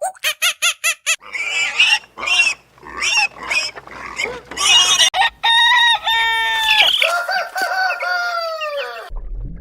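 Chickens calling: a quick run of short pitched calls, then harsh noisy calls, then a rooster crowing twice. The crowing stops abruptly about nine seconds in.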